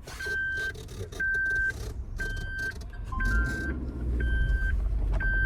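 Vehicle reversing beeper sounding steadily, one high beep about half a second long roughly every second. Beneath it an engine runs low and grows louder about three seconds in.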